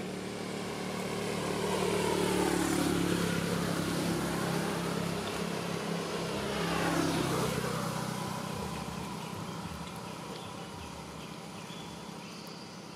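A motor vehicle's engine hum passing by. It swells to its loudest about two to three seconds in and again around seven seconds, with its pitch sliding downward, then fades away.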